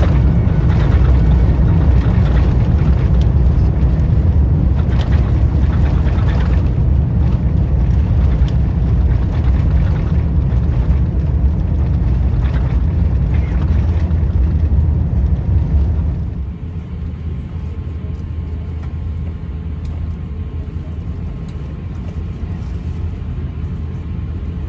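Cabin noise of an Airbus A350-900 on its landing roll: a loud, steady low rumble of engines and wheels on the runway, with some rattling. About sixteen seconds in it drops suddenly to a quieter rumble as the aircraft slows to taxi.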